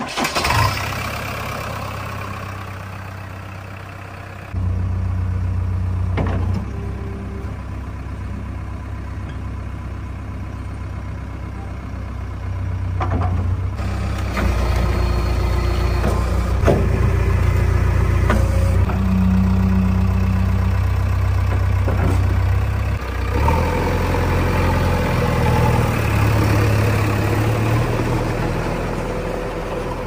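JCB 3DX backhoe loader's diesel engine starting with a sudden burst at the very beginning, then running steadily. Its level steps up and down a few times as it is revved.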